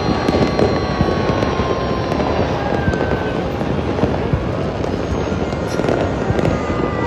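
Many fireworks and firecrackers going off at once: a dense, continuous crackling and popping with no single bang standing out.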